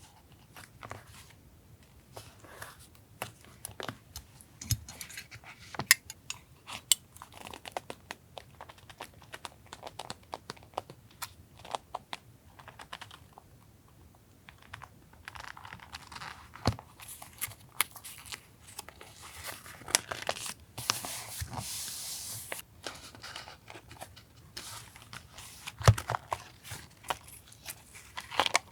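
Paper being handled for a journal collage: rustling and crinkling with scattered taps and clicks, and a longer tearing or peeling stretch from about 15 to 22 seconds in.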